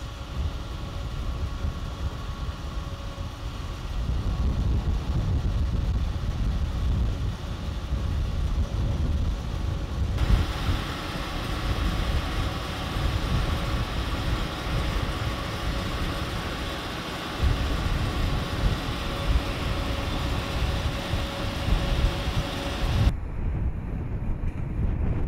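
A Vermeer horizontal directional drill rig's diesel engine and machinery running steadily under load, a deep rumble with a faint steady whine above it. The sound shifts abruptly about ten seconds in, growing brighter, and turns duller again near the end.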